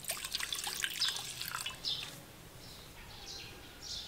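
Gasoline poured from a plastic bottle into a stainless steel bowl, splashing and gurgling. It is busiest in the first two seconds, then thins to faint scattered sounds.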